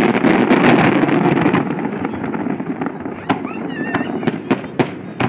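Aerial fireworks shells bursting, a dense crackling barrage for the first second and a half, then thinning to separate sharp bangs. A brief warbling whistle comes about three and a half seconds in.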